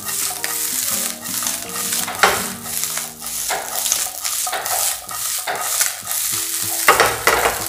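Small fish sizzling in oil in a nonstick tawa over a high gas flame, with a spatula scraping and stirring them in quick repeated strokes. This is the last stage of the fry, as the fish dry out to crisp.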